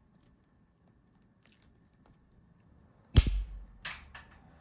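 Hand cutters snapping through a piece of metal: one loud sharp snap about three seconds in, followed by a few light clicks.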